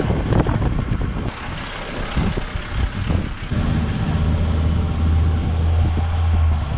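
Car on the move: engine and road noise, rough at first and settling into a steady low drone about halfway through.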